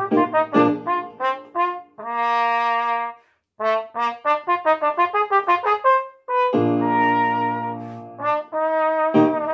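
Cornet playing a solo: quick runs of short tongued notes, a held note about two seconds in, a brief breath gap, more fast runs, then a long low held note before the runs resume near the end.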